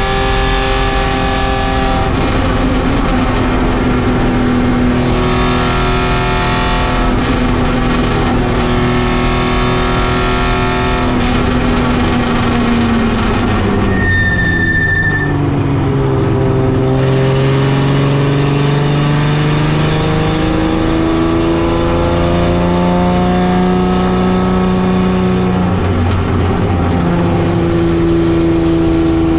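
Race car engine heard from inside its caged cabin while lapping a circuit, running hard with its pitch holding high, falling away about halfway as it slows, then climbing again under throttle. A brief high squeal comes at the slowest point.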